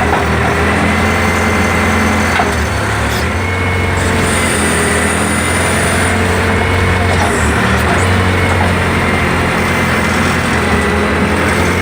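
Backhoe's diesel engine running steadily while its hydraulic boom and extendable dipper arm are worked, a constant low hum with steady higher tones over it.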